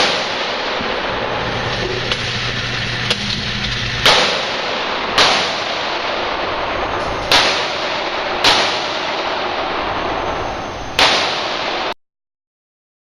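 Pistol shots: six sharp reports, irregularly spaced one to two seconds apart, with two fainter pops earlier, over a steady background hiss. The sound cuts off to silence about twelve seconds in.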